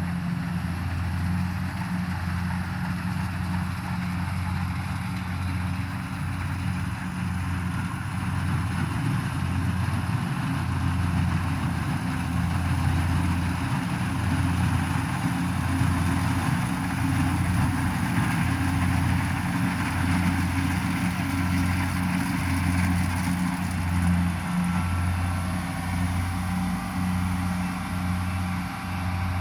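The engine of rice-harvesting machinery running steadily, a low, slightly pulsing hum with a steady rush of mechanical noise above it.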